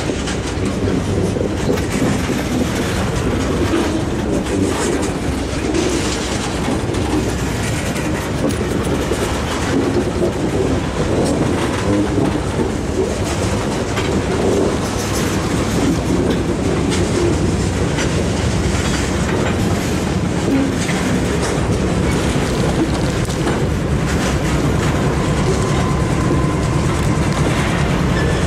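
Freight train cars, tank cars and boxcars, rolling past close by. A steady rumble runs under repeated wheel clicks over the rail joints, and a faint steady whine comes in near the end.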